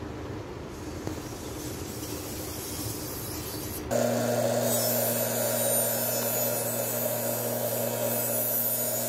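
Master Kuo GL-500 tuna knife's long blade rubbing along a Chosera 2K whetstone with an even gritty scrape. About four seconds in it switches abruptly to a bench buffer's motor running with a steady hum, the blade held against its stitched cotton buffing wheel for the final polish.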